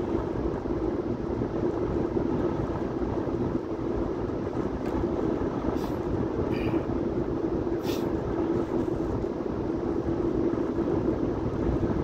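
Steady road and engine noise heard inside a moving car's cabin on a wet highway, with a few short clicks between about five and eight seconds in.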